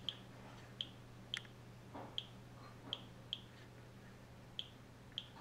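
Geiger counter clicking at random intervals, about eight sharp clicks in five seconds. The low count rate comes from a radioactive source shielded behind an inch-thick block of wood, reading near background at about 0.6 µSv/h. A faint steady hum lies under the clicks.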